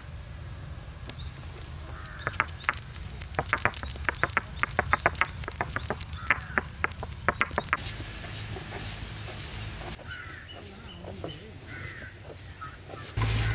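Black peppercorns cracking and popping under a stone roller on an ammi grinding slab: a rapid run of sharp crackles for several seconds, thinning out and getting fainter as the pepper is ground to powder.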